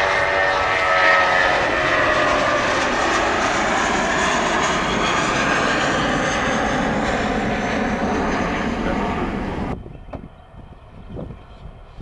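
Twin-engine jet airliner climbing out after takeoff under takeoff thrust: loud jet engine noise with whining tones that sweep downward as it passes. The sound cuts off abruptly about ten seconds in, leaving a much quieter background.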